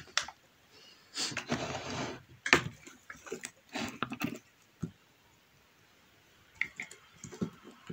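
Hands handling a motorcycle helmet and the plastic parts of a Bluetooth intercom mount: a short rustle about a second in, then scattered light clicks and knocks.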